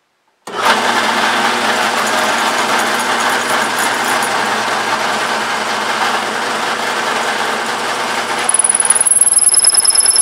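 A drill press drives a 3.5-inch hole saw into a maple board. The sound starts abruptly about half a second in: a steady motor hum under an even cutting noise. A high thin whine comes in near the end.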